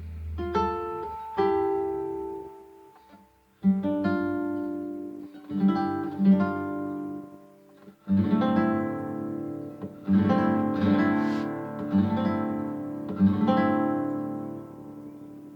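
Acoustic guitar music: plucked notes and chords struck every second or two, each ringing out and fading.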